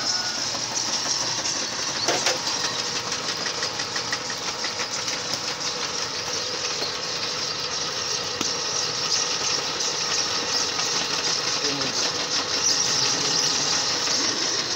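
Belt-driven clay mixing machine (pug mill) running steadily as wet clay is fed through it, with a fast, even rattle and one sharper knock about two seconds in.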